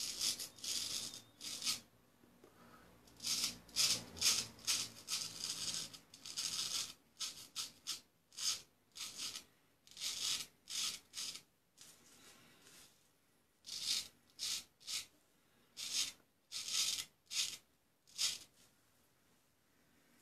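Luigi Rizzo straight razor scraping through lathered beard stubble: short, high scraping strokes, each under half a second, coming in quick runs with brief pauses between. The freshly honed blade is cutting smoothly.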